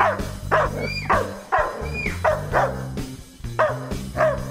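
German Shepherd barking repeatedly, about two barks a second, each bark sharp and falling in pitch, over background music.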